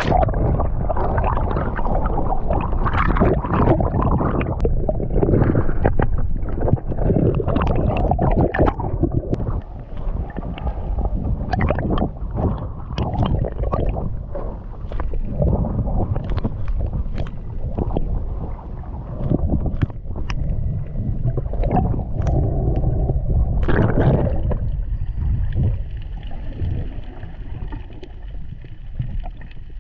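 Underwater sound of a spearfishing dive heard through a camera housing: muffled rushing and gurgling water with many scattered sharp clicks. A faint steady high whine joins about 24 seconds in.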